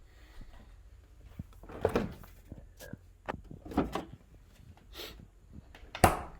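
Kitchen cupboard doors being opened and shut: a handful of separate knocks and clunks, the sharpest and loudest a little before the end.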